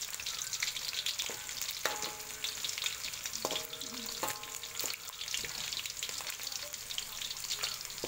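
Chicken pieces sizzling in hot oil in a wok, a steady crackle full of tiny pops. A metal spatula stirs and turns them, and its scrapes on the wok ring briefly about two seconds in and again around four seconds in.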